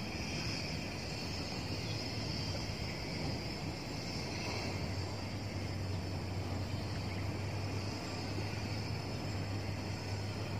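Steady outdoor background noise: a low, even hum with a faint high buzz above it, and no distinct splashes or knocks.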